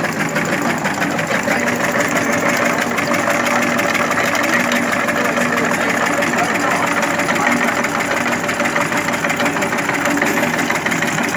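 Belt-driven tobacco cutting machine running steadily, its electric motor humming under a fast, even mechanical clatter from the cutter.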